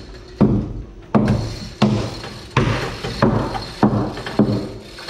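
Repeated heavy knocks, about one every two-thirds of a second at a slightly uneven pace, each followed by a short ringing boom.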